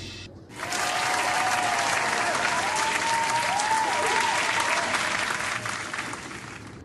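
Many racing pigeons flapping their wings inside a wire-mesh loft, a dense clatter of wingbeats that starts suddenly about half a second in.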